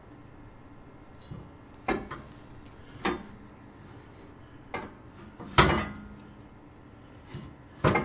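A string of sharp, irregular knocks and clunks, about seven of them, the loudest a little past halfway, with a brief ring after it.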